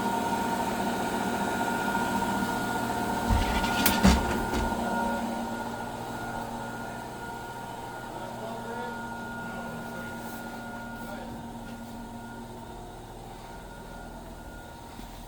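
RV washer running with a steady hum made of several fixed tones. A few sharp knocks come a few seconds in, and the hum then slowly grows fainter.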